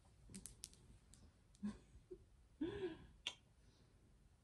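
Faint scattered clicks and handling noise as a child is lifted and held close, with a brief soft murmur of a voice about two-thirds of the way through.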